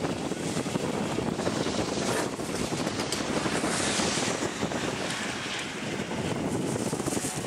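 Wind buffeting the camcorder microphone: a steady rushing noise, strongest low down, with brief hissy swells.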